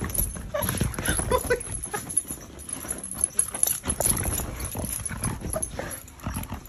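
A dog tussling on a bed: irregular thumps and rustling of bedding and handling, with a few short vocal sounds from the dog near the start.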